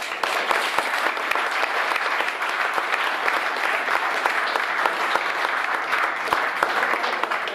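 Audience applauding: many hands clapping together, beginning suddenly and fading out near the end.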